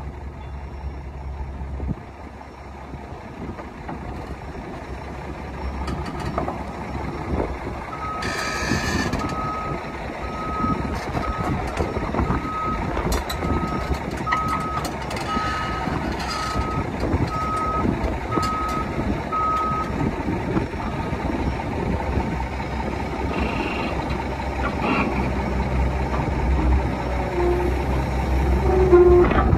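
Excavator's Cummins 6BT diesel engine running as the machine tracks under its own power, its travel alarm beeping about once a second for some twelve seconds in the middle. Scattered knocks come over the engine.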